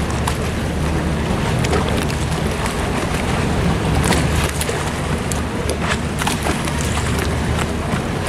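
Boat noise on a canal: a steady low engine hum under a wash of noise from water and wind on the microphone, with scattered light clicks and knocks.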